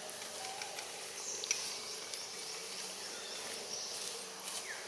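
Forest ambience of buzzing insects, with a few short high chirps and a sharp click about a second and a half in.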